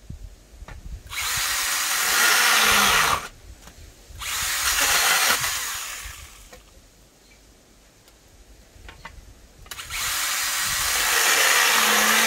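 STIHL GTA 26 battery-powered small chainsaw running in three bursts of two to three seconds each, cutting through a wooden board; the second burst fades out as the chain winds down.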